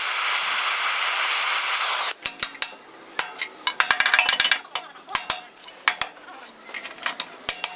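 Gas cutting torch hissing steadily, then cutting off abruptly about two seconds in. After it come irregular sharp metallic clinks and knocks.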